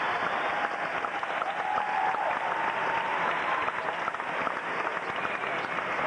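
Large arena crowd applauding a weightlifter's attempt.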